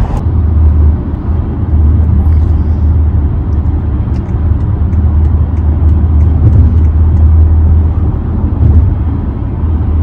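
Steady road and engine rumble heard inside the cabin of a car cruising on a freeway.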